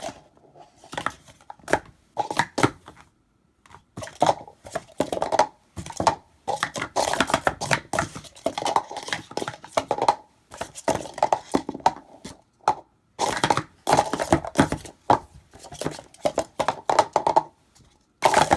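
Plastic Speed Stacks sport-stacking cups clacking against each other and the mat as they are quickly stacked into pyramids and brought back down, in fast runs of clicks with brief pauses between.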